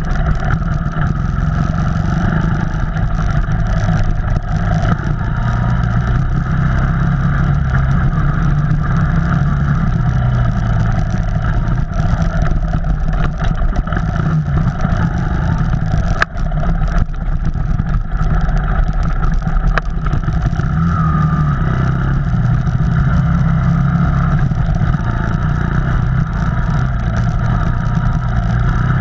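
Off-road vehicle engine running steadily while driving a trail, with a single sharp knock about halfway through.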